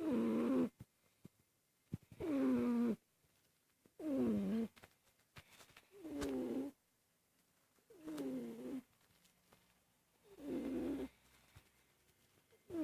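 French bulldog snoring lightly in its sleep: a short pitched snore on each breath, falling in pitch, about one every two seconds.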